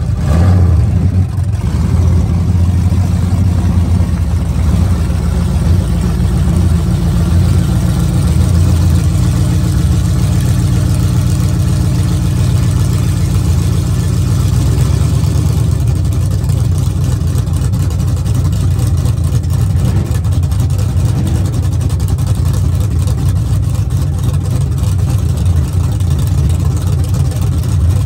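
Chevrolet square-body pickup's engine running loud and low, revving briefly at the start and then idling steadily.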